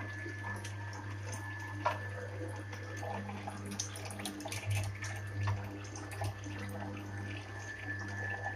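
Kuvings C7000 slow masticating juicer running: a steady low motor hum with a faint high whine, and scattered small crackles and snaps as the auger crushes ginger and oranges.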